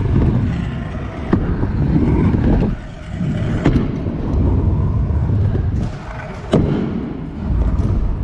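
Stunt scooter wheels rolling over skatepark ramps in a steady low rumble, broken three times by a sharp clack of the deck and wheels landing or striking the ramp.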